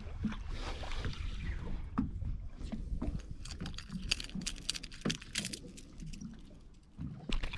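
Water lapping against the hull of a small boat drifting at rest, under a low steady rumble. A run of sharp knocks and clicks comes in the middle.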